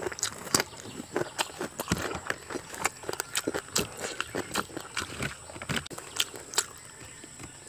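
Close-up chewing of a mouthful of rice and raw cucumber: many small, irregular crisp clicks and wet mouth smacks.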